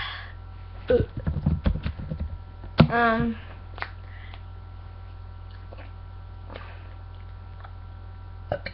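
A woman trying to burp: a stretch of low, crackly throat and swallowing sounds about a second in, then a short voiced throat sound near three seconds, over a steady low electrical hum.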